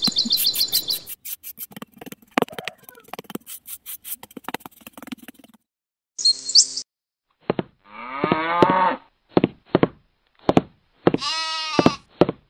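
A cow mooing in one long falling call about two-thirds of the way in, followed by a second animal call near the end. Before that, a small metal trowel scrapes and taps on a sand-and-cement surface, with birds chirping at the very start.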